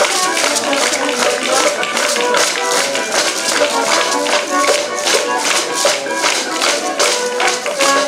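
Folk music with an ensemble of wooden percussion: plate rattles and ribbed wooden scraper boards struck with sticks, clacking in a fast, even rhythm over a melody.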